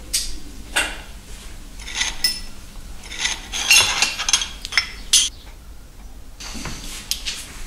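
Lines of metal letterpress type and thin lead spacing strips clinking and tapping against each other and the press bed as they are handled and set in place. The knocks come irregularly, with a busier run of clinks in the middle.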